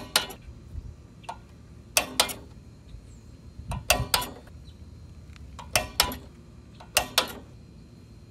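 Click-type torque wrench on a lawn mower engine's head bolt, giving five sharp double clicks a second or two apart. The clicks mean the wrench is breaking over at its set torque of 165 inch-pounds, so the bolt is now tight.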